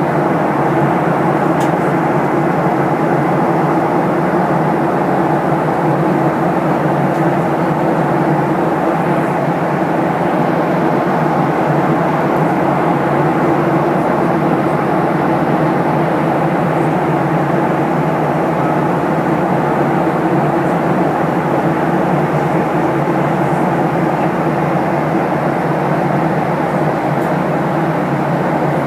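Boeing 737-800 airliner cabin noise: the steady combined sound of the engines and the air rushing past the fuselage, with a low hum running through it and no change in level.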